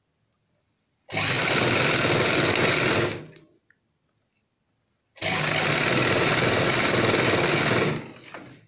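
Chauhan sewing machine stitching cotton fabric in two runs, about two and three seconds long, each starting abruptly and fading out as the machine stops. It is sewing down the folded waistband of a churidar pajama.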